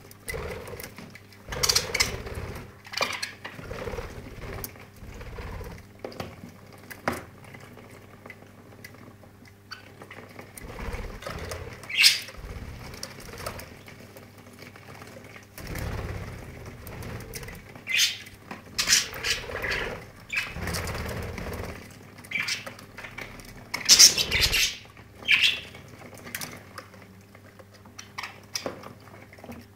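Budgerigars bathing in a plastic bird bath under a trickle of water: irregular splashing and wing fluttering in the water, with short chirps now and then. The loudest splashes come about 12 and 24 seconds in.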